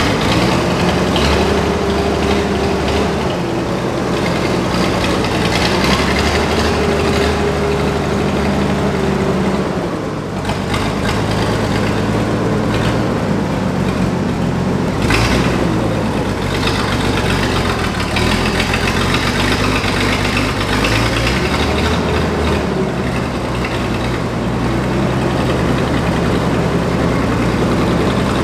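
Clark forklift's engine running, its speed rising and falling again and again as the forklift is manoeuvred to shift a disabled forklift. There is a single sharp knock about fifteen seconds in.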